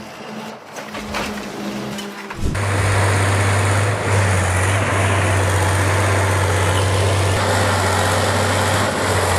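Heavy machine engine running steadily and loud, cutting in abruptly about two and a half seconds in with a strong low hum; before that, a quieter stretch with a few knocks.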